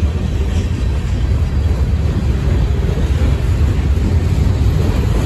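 Freight train of tank cars and covered hopper cars rolling past: a steady low rumble of steel wheels on the rails.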